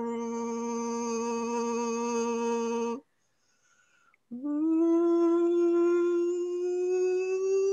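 A person's voice humming long held notes in meditative toning. One steady note runs for about three seconds and breaks off, and after about a second's pause a second long note slides up in pitch at its start and keeps rising slowly.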